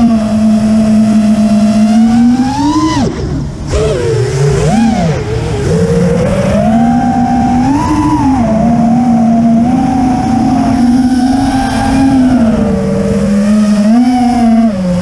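FPV quadcopter's motors and propellers whining, recorded on board, the pitch rising and falling with the throttle. About three seconds in the pitch drops sharply as the throttle comes off, then wobbles back up and runs steady again.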